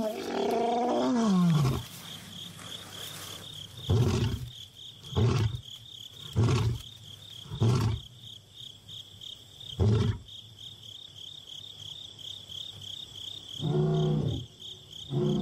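Young male lion roaring: a long moaning roar falling in pitch, then a series of short grunting roars, the later ones more widely spaced. Insects chirp steadily underneath. It is a contact call to a separated brother that has not answered.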